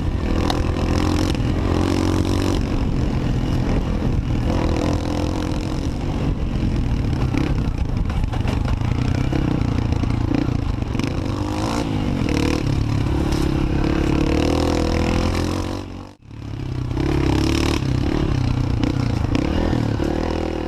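Motorcycle engine running steadily while riding, with a brief sudden break about sixteen seconds in.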